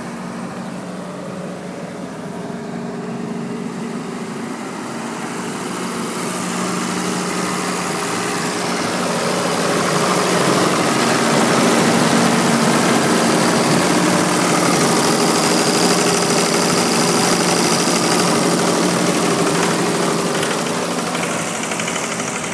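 Komatsu 6D95L-1 six-cylinder diesel engine of an Atlas Copco 70 kVA silent generator set, running at a steady speed with its canopy doors open. The sound grows louder and fuller midway, then eases off near the end.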